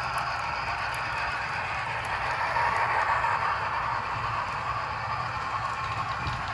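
Two Athearn HO scale model locomotives running along the track: a steady whir of motors, gears and wheels on rail, briefly louder around the middle as they pass close.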